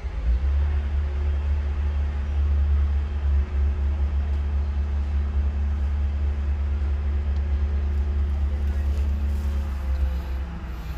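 Engine idling with a steady deep rumble, heard from inside a vehicle's cab.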